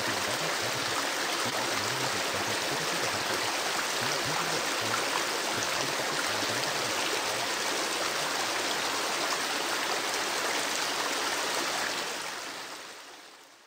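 Flowing river or stream, a steady rush of running water that fades out over the last second or two.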